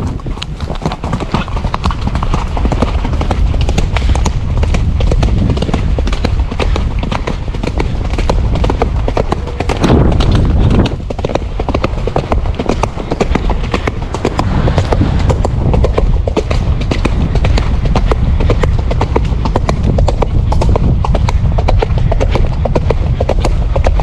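Horse cantering uphill on a leaf-covered dirt track: a continuous run of hoofbeats over a steady low rumble.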